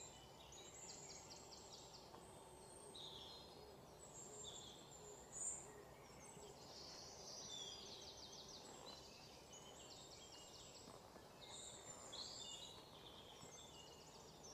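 Faint outdoor ambience: a low hiss with small birds chirping and giving short, rapid trills that recur every few seconds.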